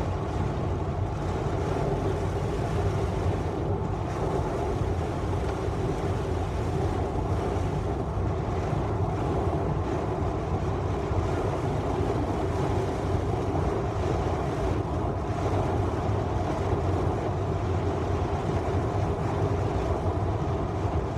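Heavy rain pouring down on a car, heard from inside the cabin as a steady, unbroken rushing hiss with a low hum underneath.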